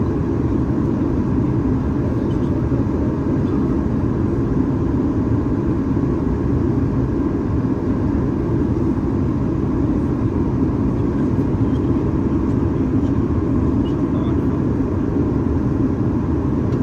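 Steady in-flight cabin noise of a Boeing 737 MAX 8-200, the low rush of airflow and its CFM LEAP-1B engines, with a faint steady tone above it.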